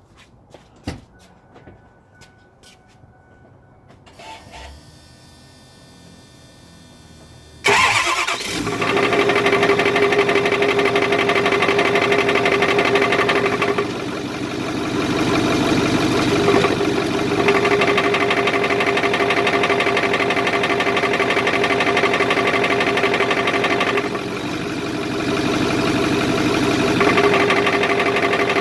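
2008 Ford F-250's 6.4 L Power Stroke V8 diesel: a few faint clicks and a soft hum, then the engine starts about a quarter of the way in and runs at idle. Its note dips and changes twice. The idle carries a ticking knock that the owner hears only in park or neutral, going away in drive or reverse; he cannot find where it comes from.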